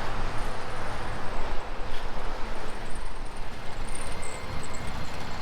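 Steady road and engine noise of a car moving slowly, heard from inside the cabin, with a constant low hum.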